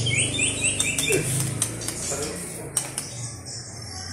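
White-rumped shama song: a quick run of short, falling whistled notes, then a burst of sharp clicking notes, the loudest near the middle.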